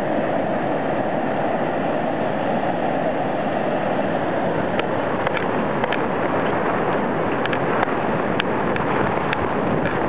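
Steady rush of ocean surf with wind buffeting the microphone. From about halfway in come scattered sharp taps from running footsteps and the jostled handheld camera.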